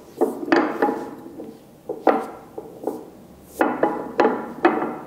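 A hard white cone knocked and tipped against a stone table top: about seven sharp clacks at uneven intervals, each with a short ring.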